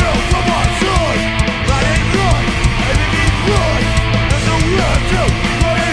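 Hardcore punk band playing loud live: distorted electric guitars, bass and drums, with short notes bending up and down in pitch throughout.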